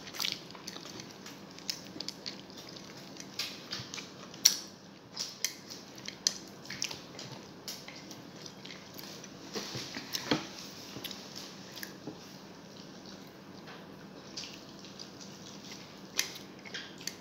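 Close-miked eating by hand: rice and adobo being chewed with irregular wet mouth clicks and lip smacks, along with fingers working rice on a plate. The sharpest click comes about four and a half seconds in.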